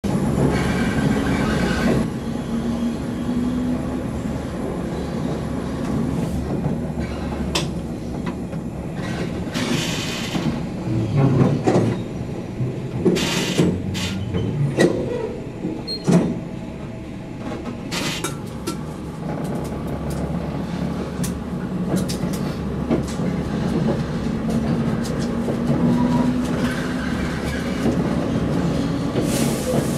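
QR 2000 class diesel railmotor running along the track, heard from on board: a steady engine drone with irregular clicks and clunks from the wheels on the rails.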